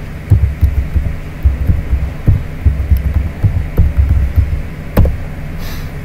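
Typing on a computer keyboard: about fifteen dull keystroke thumps at an uneven pace as one word is typed, over a low steady hum.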